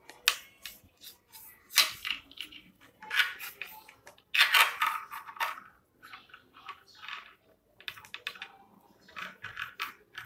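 Saree cloth strips rustling and scraping in irregular bursts, with a few sharp clicks, as they are pulled and pushed by hand through a woven rag doormat with a long metal needle.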